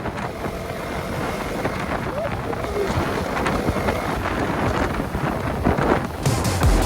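Wind rushing over the microphone on a moving motorcycle, with engine and road noise underneath. Near the end the sound changes abruptly as music comes in.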